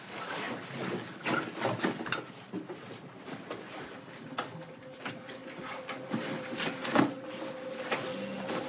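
Hurried handling sounds of clothing and a bag: rustling with a string of small knocks and clicks as things are picked up and put down, and one sharper knock near the end. A steady low hum comes in about halfway.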